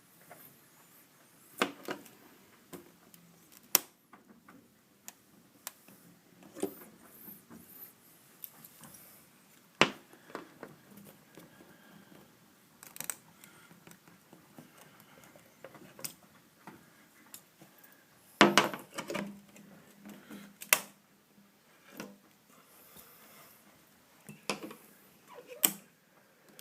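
Irregular sharp clicks and knocks of a hand tool working metal nails out of a wooden door frame, with quiet scraping between the louder strikes.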